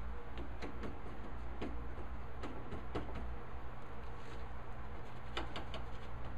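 Irregular light clicks and taps of hand tools being handled and set against a wooden board, over a steady low hum.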